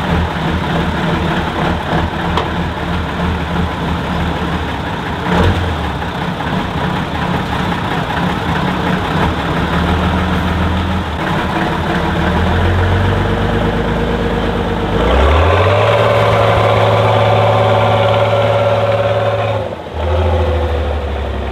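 Heavy off-road trial truck's engine running at low revs, then revved up about two-thirds of the way through, held high for four or five seconds and dropped back. There is a single knock about five seconds in.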